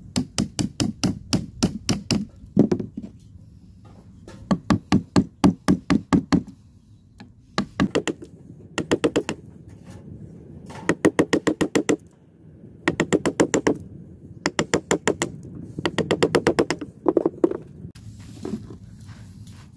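A wood chisel struck in quick runs of blows, about five or six a second in bursts of one to three seconds with short pauses, chopping the waste out between saw kerfs in the end of a board to form the sockets of a finger joint.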